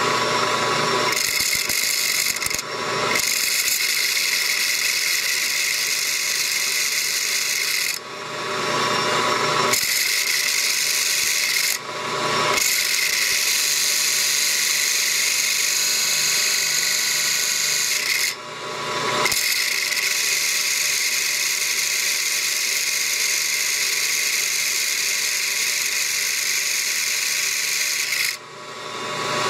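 3D-printed plastic bevel gears meshing at high speed, the large gear at 1400 RPM driving the small one at about 4200 RPM: a loud, high hissing whir over a steady high whine. The meshing noise cuts out briefly several times and builds back up each time.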